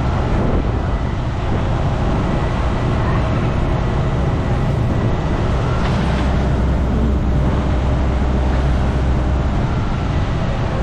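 Van driving along a road: steady engine and road noise with a low rumble that grows heavier about five seconds in and eases again near nine seconds.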